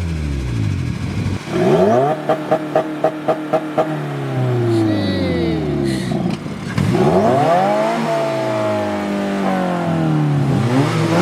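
A car engine revved repeatedly in free-rev, its pitch climbing and dropping in several sweeps. About two seconds in comes a quick run of about seven short blips.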